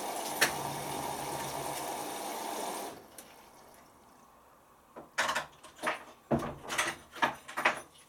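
Hoover Optima OPH714D washing machine during its load-sensing phase. A steady running noise stops abruptly about three seconds in. In the last three seconds there is a quick series of about six short knocks and sloshes from the drum.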